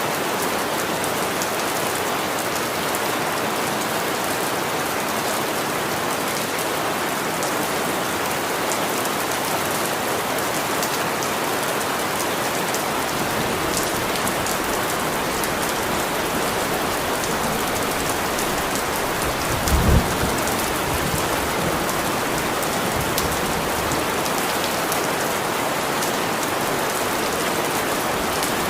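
Steady heavy rain falling, an even hiss of drops, with one brief low rumble of thunder about two-thirds of the way through.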